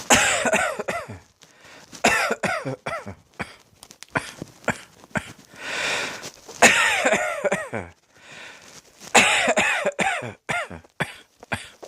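A person coughing in repeated fits: four bouts of several coughs each, a couple of seconds apart.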